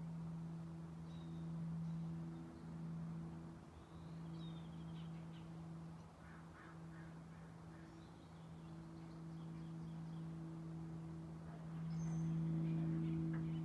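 Forest ambience: a steady low hum that swells and dips in level, with faint, scattered bird chirps and short trills over it.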